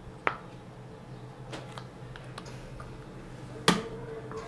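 Light clicks and taps from handling a plastic cream tube and spatula while cream is put onto the spatula. Two sharp clicks stand out, one just after the start and a louder one near the end.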